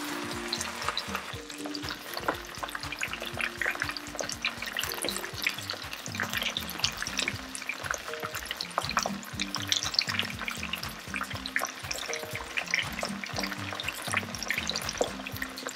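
Cornstarch-coated chicken pieces frying in hot oil in a frying pan: a steady, busy crackle and sizzle of popping oil bubbles.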